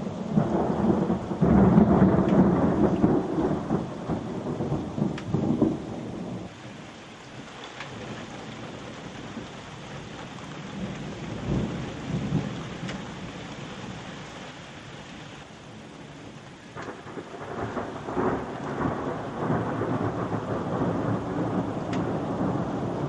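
Thunder rumbling over steady rain: a long roll through the first six seconds, then a quieter stretch, and another long roll building near the end.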